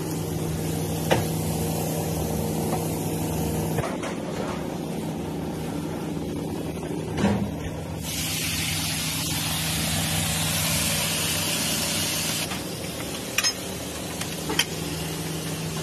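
Hot flat-top griddle hissing loudly for about four seconds in the middle, over a steady low kitchen hum. A few sharp clicks of metal spatulas on the griddle come near the end.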